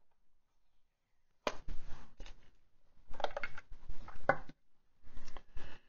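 Hands handling a clear plastic pen case: three bunches of plastic crackling and clicking, starting about a second and a half in.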